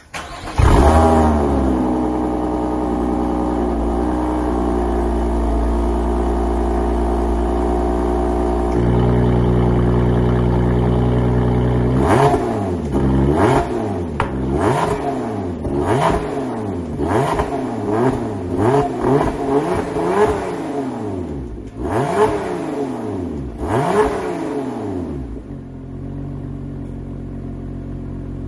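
Lotus Emira First Edition on its stock exhaust with the valves open (track mode): the engine catches with a loud flare just under a second in, settles to a steady idle whose note shifts about nine seconds in, then is blipped through about a dozen quick revs before dropping back to a steady idle near the end.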